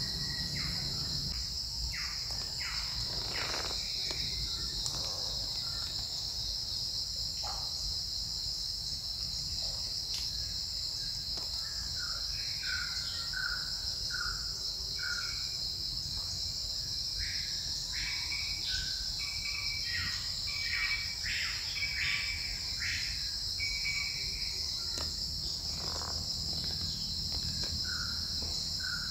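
Steady high-pitched drone of forest insects, with birds chirping in short repeated notes through the middle and a few faint clicks and rustles.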